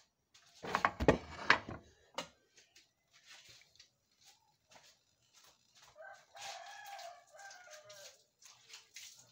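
A rooster crows in the background: one crow of about two seconds, starting around six seconds in and falling in pitch at its end. About a second in there is a brief, loud burst of noise.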